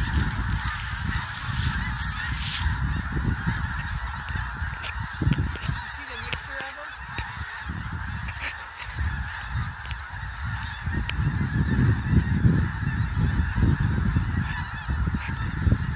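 A huge flock of snow geese calling all at once: a dense, unbroken din of overlapping honks.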